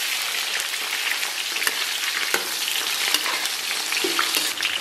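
Scallion, ginger and garlic sizzling hard in hot oil in a wok, with a metal ladle stirring them and clicking against the pan now and then.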